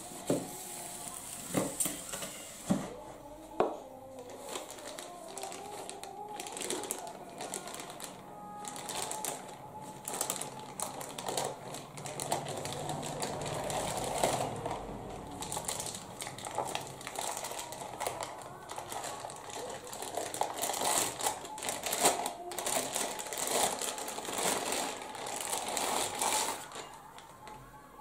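Plastic packaging bag crinkling and rustling continuously as ceiling-fan parts are unwrapped by hand, with a few light knocks in the first few seconds.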